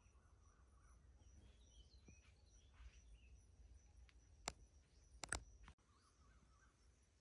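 Near silence: forest ambience with faint bird chirps and a steady thin high-pitched tone. Three sharp clicks come about two-thirds of the way through, the last two close together.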